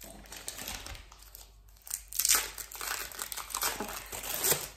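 Thin plastic packaging crinkling as processed cheese slices are handled in their packet and a slice is peeled off its clear film. The crackling is irregular and gets louder and busier from about two seconds in.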